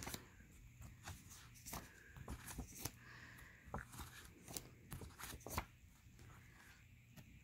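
Faint handling noises: scattered light clicks and rustles, more frequent in the first few seconds, the sound of small objects or papers being moved by hand.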